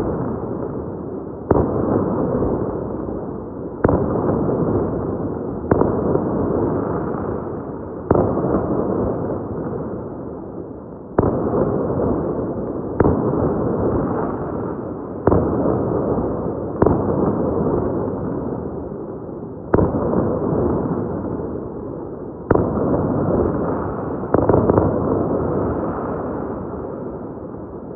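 Fireworks bursting one after another, a sharp bang about every two to three seconds, each trailing off in a long fading rumble; about a dozen in all, the last a few seconds before the end, after which the sound dies away.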